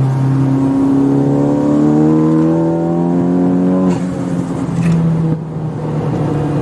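Turbocharged 2.0-litre four-cylinder of a tuned Honda Civic Type R FK8, pulling hard under full throttle with its note rising steadily for about four seconds. About four seconds in, the throttle closes and the pitch drops suddenly, with a short turbo flutter, before the engine settles to a lower steady note.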